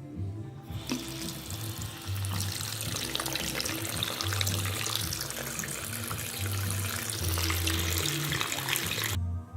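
Faucet running water into a sink, spraying out unevenly because its aerator screens are clogged. The rush of water shuts off abruptly near the end. Background music with a bass line plays underneath.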